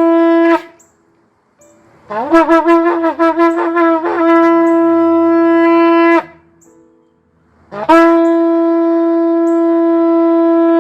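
A shofar (ram's-horn trumpet) sounding. A long held blast ends about half a second in, then a rapid run of short broken notes leads into a held note, and near the end another long steady blast begins.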